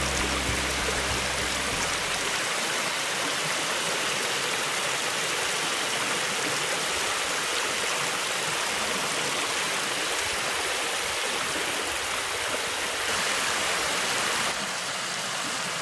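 Small mountain stream rushing over rocks: a steady wash of flowing water, with a music tail fading out in the first couple of seconds.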